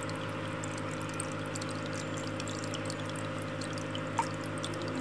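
Aquarium water trickling and bubbling, with small pops, over a steady low electric hum from the tank's equipment. There is a single short tick about four seconds in.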